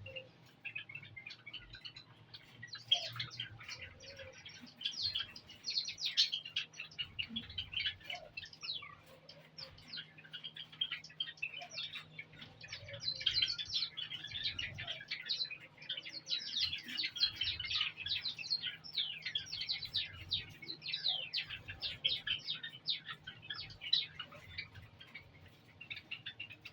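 A flock of caged Java sparrows chirping continuously, with many short, sharp calls overlapping throughout.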